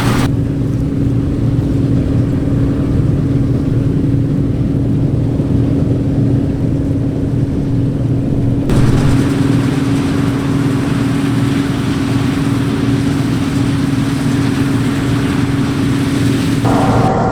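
Claas Dominator 85 combine harvester running steadily at work in wheat: a constant low engine drone with a steady hum above it. The higher noise changes abruptly twice, about a third of the way in and again near the end.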